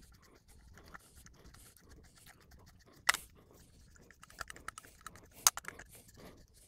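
Screwdriver turning the mounting screws of a light switch into a metal electrical box: soft scratching and small metal clicks, with two sharp metal clicks about three and five and a half seconds in.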